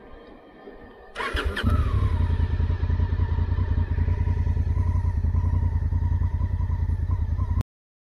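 Honda parallel-twin motorcycle engine being started: a short whirr about a second in, then the engine catches and idles steadily. The sound cuts off suddenly shortly before the end.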